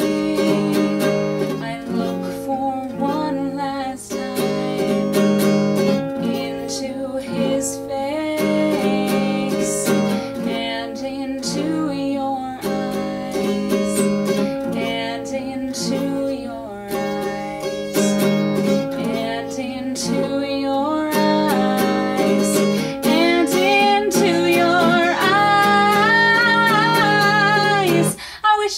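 Small-bodied acoustic guitar strummed steadily, chords that are variations on a G chord, with a woman singing over it; her voice comes in strongest over the last several seconds.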